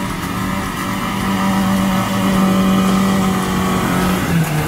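Toyota Fortuner SUV's engine under load climbing a rutted dirt trail, held at steady revs, then the revs drop near the end.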